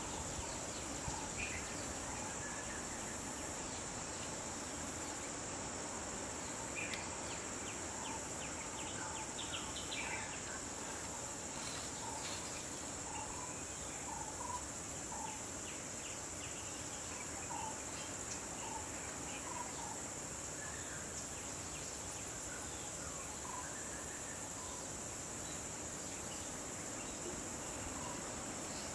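A steady high-pitched insect chorus over a constant even hiss, with scattered short chirps through it.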